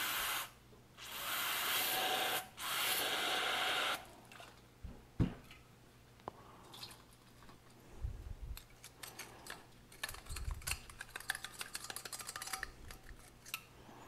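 Aerosol brake cleaner sprayed in three hissing bursts into a diesel heater's burner tube to flush out soot. After that come scattered light clicks and scraping as the metal part is turned and handled.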